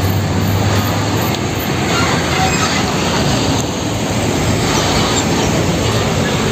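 UD Quester truck hauling a fuel tanker semi-trailer, driving past close by: a steady, loud rush of engine and tyre noise, with a low engine hum in the first second or so.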